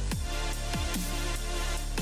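Electronic background music with a heavy, steady beat: repeated deep bass hits that drop quickly in pitch under held synth tones.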